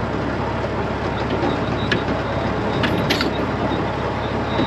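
Heavy truck diesel engine running steadily at idle, with a few light clicks about two and three seconds in.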